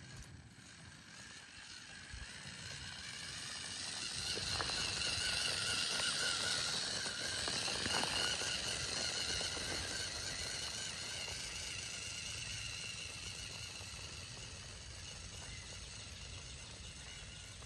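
Electric drive motors and geared drivetrain of a WPL-based 8x8 RC truck whining as it drives over gravel, growing louder as it comes close about halfway through and fading as it drives away.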